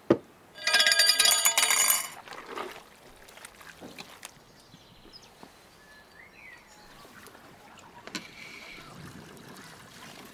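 A long steel shawarma skewer rod clanks and rings loudly for about a second. Softer handling sounds follow as raw lamb pieces are threaded onto it, with a second, fainter metallic ring about eight seconds in.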